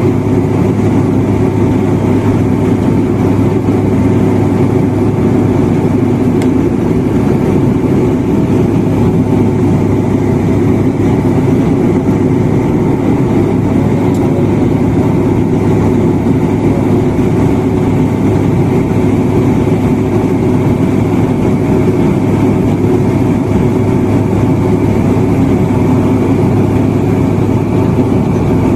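Cabin noise of a high-wing turboprop airliner on its approach to land: the propellers and engines make a loud, unbroken drone with a constant low hum underneath.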